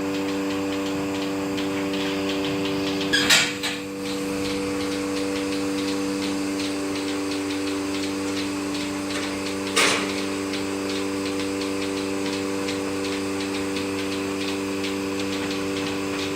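Steady hum of running electric machinery with a fast, regular ticking over it, broken by two loud knocks, one about three seconds in and one near ten seconds.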